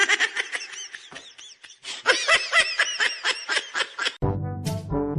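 Rapid giggling laughter, several short peals a second, which cuts off suddenly about four seconds in as music begins.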